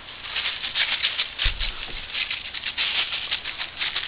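Dry fallen leaves crackling and rustling in quick, irregular strokes as they are trodden through, with a couple of dull thumps about a second and a half in.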